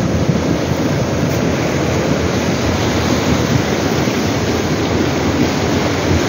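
Muddy floodwater rushing loud and steady through a swollen stream, with a deep rumble from stones rolled along the bed by the current.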